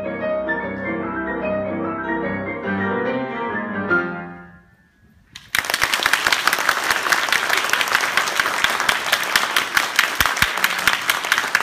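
The closing bars of a piano tarantella, ending on a final accented chord about four seconds in that dies away. After a second of hush, audience applause breaks out suddenly and carries on.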